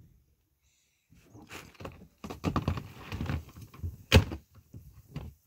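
Knocks and clatter of a large plastic storage tote being handled and lifted, with one louder thump about four seconds in.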